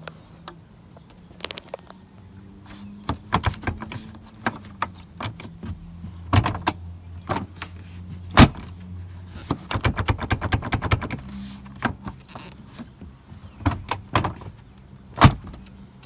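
Clicks, knocks and rattles from hands working a Smart ForTwo's tailgate and its latch, with two sharp loud bangs, the first about eight seconds in and the second near the end. A low steady hum runs underneath through the middle.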